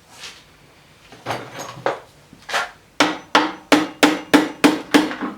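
Hand tool tapping on metal snowblower carburetor parts: a few scattered knocks, then from about halfway a steady series of sharp taps, about three a second, each with a brief ring.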